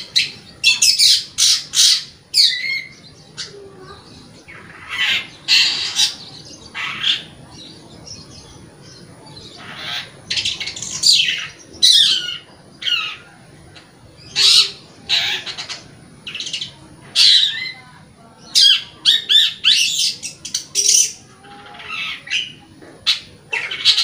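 Long-tailed shrike (cendet) singing loudly in repeated bursts of harsh, rapid, high chattering notes, separated by short pauses.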